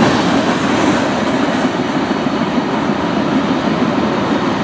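Freight train's tank cars rolling past on the rails, a steady rumble of steel wheels on track as the tail end of the train goes by. The upper hiss eases off about two seconds in as the last car clears and the train rolls away.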